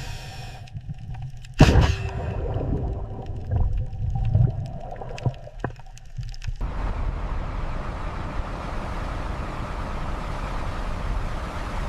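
A single heavy impact with a ringing tail about two seconds in, over low rumbling and scattered clicks. From about seven seconds a steady rushing noise takes over.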